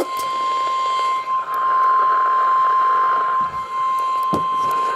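NOAA Weather Radio's steady 1050 Hz warning alarm tone, played through a receiver's small speaker; the tone announces that a tornado warning broadcast follows. A faint hiss rises under it partway through, and a single knock comes near the end.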